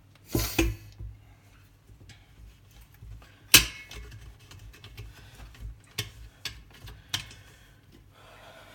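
Handling noise from a metal kettle being wiped down with a cloth: a few sharp knocks and clinks, the loudest about three and a half seconds in.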